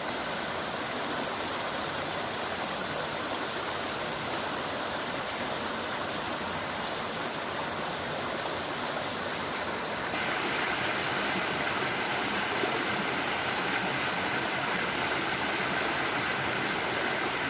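Running water of a stream, a steady rushing sound that steps up louder and brighter about ten seconds in.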